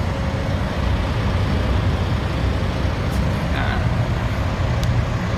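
Steady low rumble of an idling vehicle engine, with an even road-noise hiss over it.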